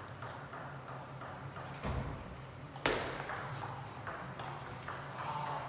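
Table tennis ball clicking off bats and table during a serve and rally, several clicks a second. A dull thump comes just before two seconds in, and the loudest, sharpest hit just under three seconds in.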